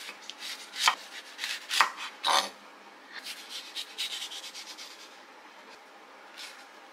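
Chef's knife slicing through a crisp, firm-fleshed melon onto a wooden cutting board: three loud cutting strokes in the first two and a half seconds, then a run of lighter rasping cuts that fade out.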